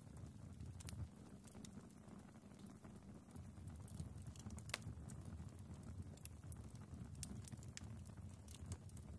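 Faint fire crackling in a fireplace: a soft, steady low background with scattered sharp pops and snaps, the sharpest nearly five seconds in.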